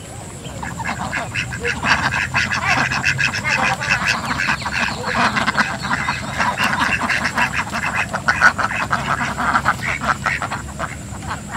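A flock of domestic ducks quacking: many short, overlapping quacks in a rapid chatter, starting about a second in and thinning out near the end.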